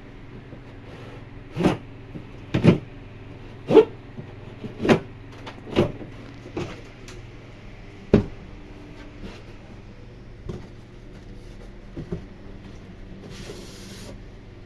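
About nine irregular knocks and thumps, the loudest in the first half and a few fainter ones later, with a short scraping hiss near the end, over a steady low hum: handling of the boxed split AC unit and its packaging.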